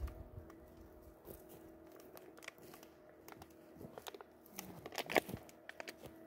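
Faint scattered crunching and crackling clicks, growing denser about five seconds in, over a faint steady hum.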